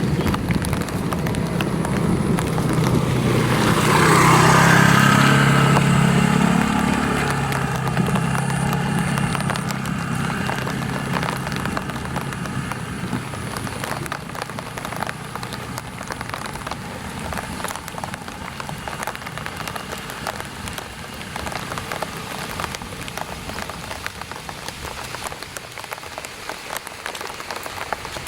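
Light rain pattering steadily on an umbrella. A motor vehicle passes close by, its engine loudest about four to five seconds in and fading away by about seven seconds.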